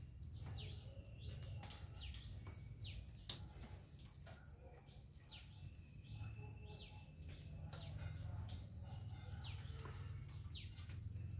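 Birds chirping: short, high chirps that slide downward, repeated every second or so, over a steady low rumble.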